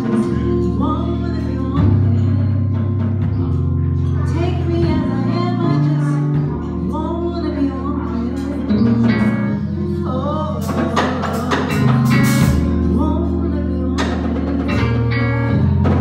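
Live band playing with singing: a deep bass line holding each note for a second or two under keyboard and wavering vocal lines, with cymbal crashes in the middle.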